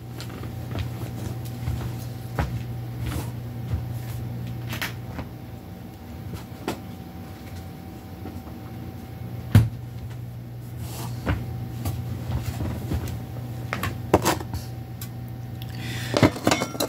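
Scattered knocks and clicks of someone rummaging through cupboards, with one sharp knock about halfway through, over a steady low hum.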